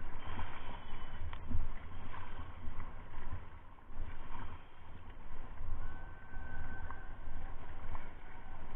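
Paddle strokes splashing in river water beside an inflatable raft, under an uneven low rumble of wind buffeting the microphone.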